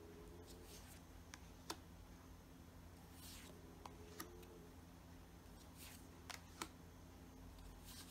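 Large tarot cards being laid one at a time onto a pile on a wooden table: a few faint clicks and soft slides of card stock over a steady low hum.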